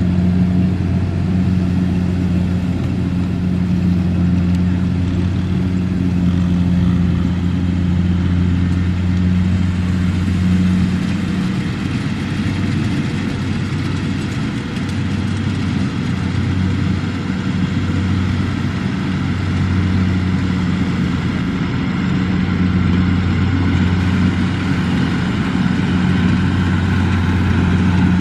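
Kubota M6040SU tractor's four-cylinder diesel engine running steadily as it tows a loaded trailer, its low drone wavering a little about halfway through.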